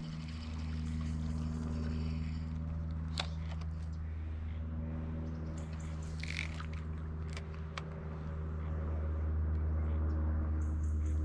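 A steady low mechanical hum, with a few sharp clicks about three seconds in and again between six and seven and a half seconds.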